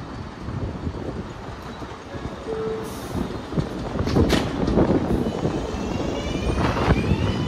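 R188 subway train rumbling over elevated track. Its traction motors start a rising, multi-toned whine near the end, as when the train is gathering speed.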